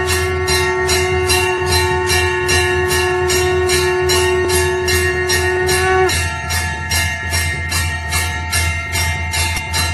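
Temple bells rung rapidly at about four strikes a second during a puja aarti, with a shankh (conch shell) blown in one long steady note that cuts off about six seconds in. A steady low hum runs underneath.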